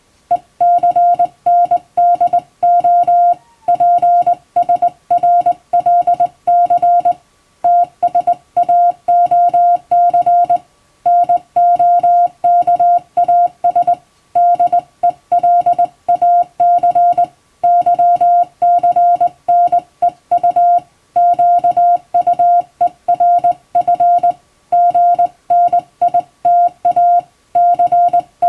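Hand-keyed Morse code: a single steady beep switched rapidly on and off in short and long marks, with brief breaks between groups every few seconds. It is English-language text sent in telegram format.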